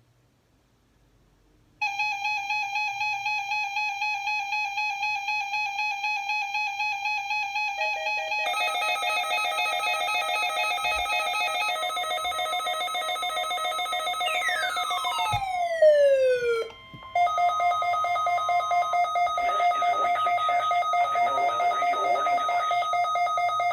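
Layered electronic alarm-like tones with a fast pulsing warble, starting about two seconds in. More tones join about eight seconds in, and a falling glide sweeps down near the middle. After a brief break, steady tones return under a crackly noise.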